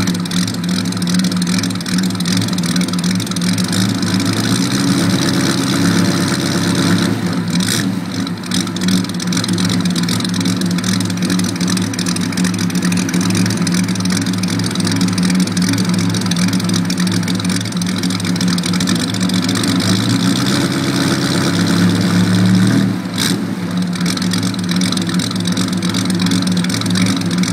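Bugatti Type 35 straight-eight engine running steadily, heard at the exhaust, its note dropping away briefly about a third of the way in and again near the end.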